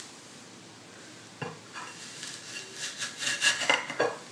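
Metal apple corer being pushed and twisted into a raw apple on a china plate: a sharp click about a second and a half in, then crunching scrapes through the fruit and a couple more sharp clicks near the end.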